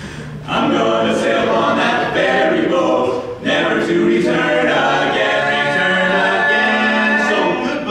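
Male barbershop quartet singing a cappella in four-part close harmony, coming in about half a second in. The singing breaks off briefly around three and a half seconds in, then ends on a held chord near the end.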